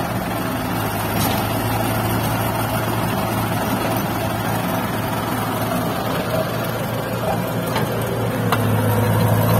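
Diesel engine of a fully loaded dump truck running steadily close by, a low even hum, getting a little louder near the end.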